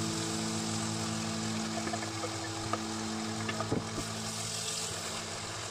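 Chicken breast frying in hot oil in a pan, sizzling steadily, with a few sharp taps of a utensil against the pan, over low held background music notes.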